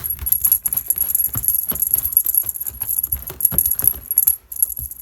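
Cat toy jingling and rattling as it is shaken and chased, a quick irregular run of metallic clicks and jingles.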